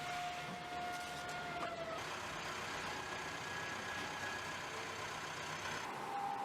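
Car-factory machinery noise: a steady hiss with a held whine. The whine shifts in pitch abruptly about two seconds in and again near the end.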